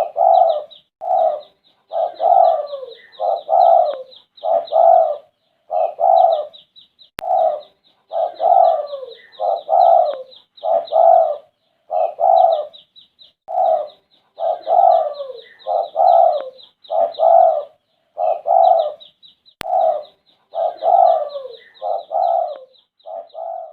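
Spotted dove (derkuku) cooing over and over, its coos coming about once a second with short gaps every few seconds. A fast, high chirping trill runs along underneath.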